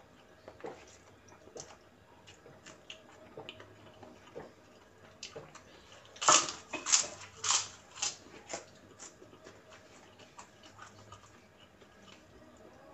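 Close-miked eating: quiet chewing and small wet mouth clicks over instant fried noodles, then, about six seconds in, several loud crunches over about two seconds as a kerupuk cracker is bitten and chewed, before the quiet chewing resumes.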